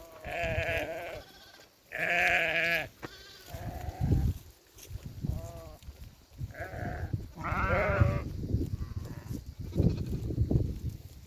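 Sheep bleating, about six separate wavering calls one after another, over low rumbling noise.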